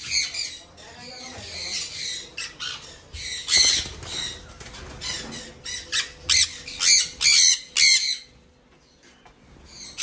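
Caged conures squawking: shrill, high-pitched calls in short repeated bursts, with a brief lull about eight seconds in.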